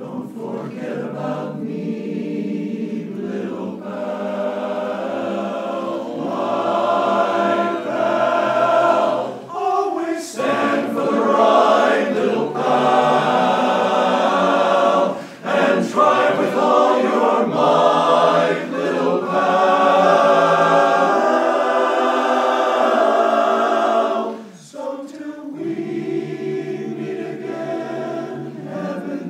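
Men's barbershop chorus singing a cappella in close harmony, starting a new song at the outset. The singing swells louder through the middle and briefly drops back twice.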